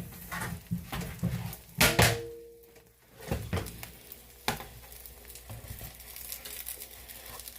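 Cookware knocking and clattering: a metal pan is set down with a clank that rings briefly about two seconds in, followed by a few lighter clicks.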